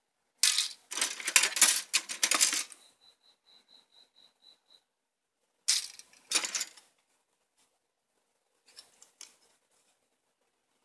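Plastic model-kit runners handled in their cardboard box, with clattering and crinkling in two bursts: one about two seconds long, then a shorter one a little past halfway. A faint rattle follows near the end.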